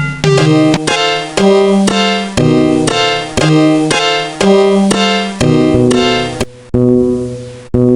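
Background music: a keyboard melody of notes about two a second, turning into a softer, lower passage about six and a half seconds in.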